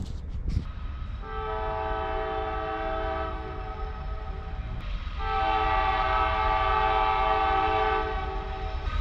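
Locomotive air horn of an approaching train, several notes sounding together as one chord, in two long blasts, the second louder than the first.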